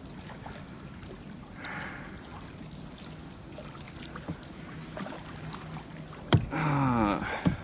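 Kayak paddle dipping and dripping in still floodwater, with small trickles and ticks of water. A sharp knock comes about six seconds in, followed by a short vocal sound near the end.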